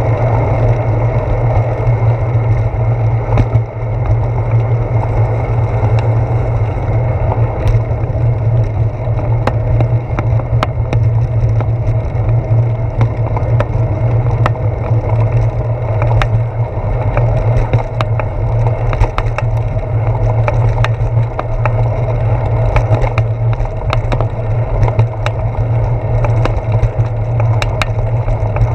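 Ride noise picked up by a handlebar-mounted GoPro Hero 4 on a moving bicycle: a steady low rumble of wind and road vibration, with frequent sharp clicks and knocks as the bike goes over bumps in the path, more of them in the second half.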